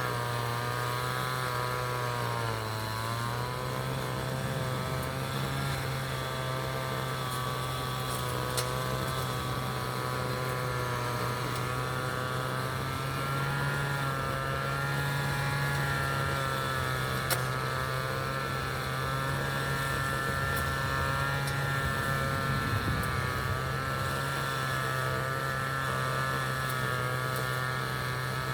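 City street traffic ambience: a steady low engine hum with a drone of several tones that drift slightly in pitch, and two short clicks partway through.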